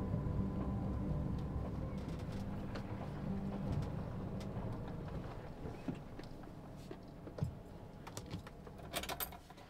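Inside the cabin of a Volkswagen T3 camper van: the engine and road noise rumble low and die away over the first five seconds as the van slows to a stop, then scattered small clicks and rattles, with a quick cluster of sharp clicks near the end.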